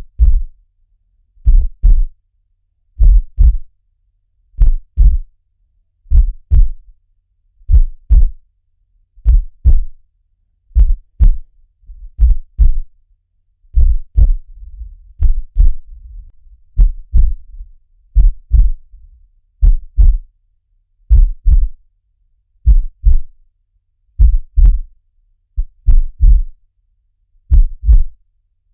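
Heartbeat sound: paired low thumps (lub-dub) repeating steadily, about one pair every second and a half. A faint low rumble fills the gaps between beats in places.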